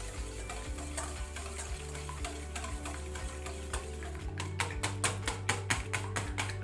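A whisk beating an egg in a bowl: quick clicking strokes against the bowl, growing louder and sharper about four seconds in at roughly five strokes a second.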